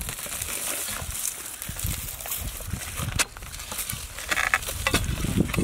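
Dry grass, roots and twigs rustling and crackling as they are pulled and broken away from dry, cracked ground by hand, with one sharp click about three seconds in.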